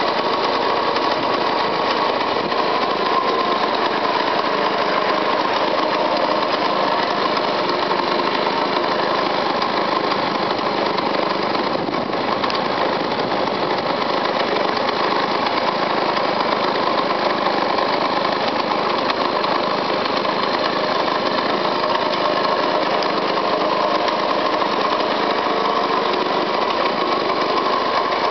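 1960 Puch 175 SVS motorcycle's split-single two-stroke engine running steadily, its revs holding even throughout.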